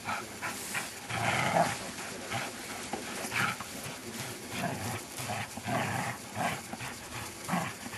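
Groenendael Belgian Shepherd growling in short, irregular bursts while it tugs at a rag in a tug-of-war with a person.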